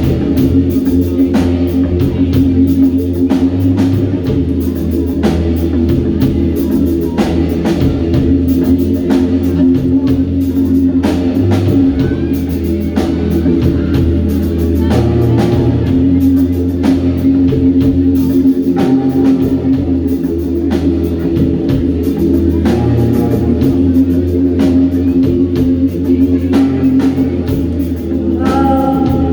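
A live band playing an instrumental passage: guitar and held bass notes over a steady drum beat. A singing voice comes in about a second before the end.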